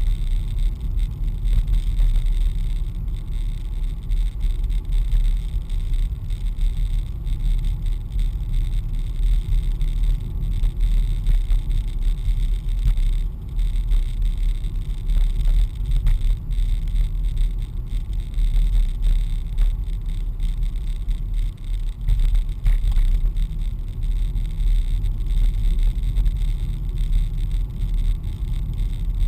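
Steady low rumble of a car driving, heard from inside the cabin: engine and tyre noise at an even pace.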